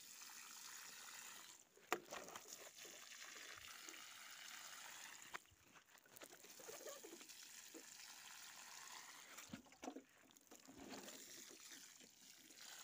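Water spraying from a plastic watering can's sprinkler rose onto dry soil: a faint, steady hiss that stops briefly three times as the can moves from plant to plant. A single sharp click about two seconds in is the loudest moment.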